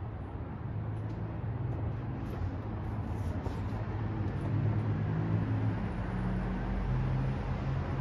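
City street traffic: a steady low rumble of engines and tyres that grows louder about halfway through as cars drive through the intersection below.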